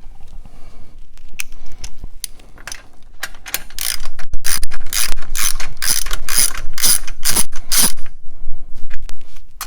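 Ratchet wrench clicking in quick strokes as the Ford Model A's manifold nuts are run down snug before torquing: a few scattered clicks, then about ten loud strokes at roughly two a second from about three seconds in, stopping near the end.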